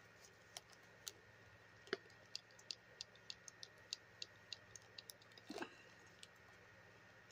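Faint run of small sharp clicks, about three a second, with a soft knock about two seconds in, from a fashion doll's body and limbs being handled as it is dressed.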